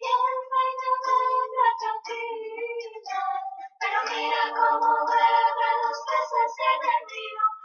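A high voice singing a melody in long held notes, with a short pause a little past halfway and a fuller passage after it.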